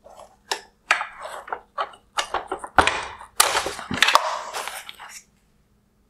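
Hard plastic parts of a 2016 Mercedes-Benz GLE LED headlight clicking, knocking and scraping as a wire harness connector is unplugged from the fan and the plastic bracket is worked out of the headlight housing. A quick run of sharp clicks and knocks, densest about three to four seconds in, stops about five seconds in.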